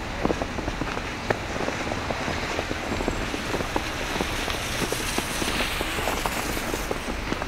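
Footsteps crunching and squelching through snow and slush on a pavement, with many small irregular crackles. Around the middle a brief hiss of bicycle tyres on slush swells and fades as a cyclist passes.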